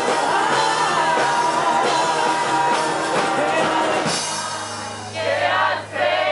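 Live rock song with a man singing loudly over an amplified acoustic guitar and drums, ending about four seconds in. A low steady hum remains, then the crowd starts shouting and cheering near the end.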